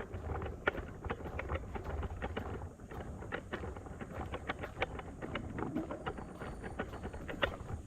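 Irregular light knocks and taps, several a second, over a low wind rumble on the microphone.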